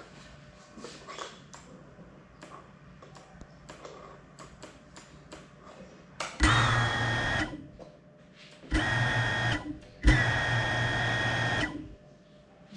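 GEPRC Cinelog 35 FPV drone's brushless motors and propellers spinning up in three short bursts, a steady high whine over a rushing noise, each cutting off sharply. Before them, only faint ticks and taps.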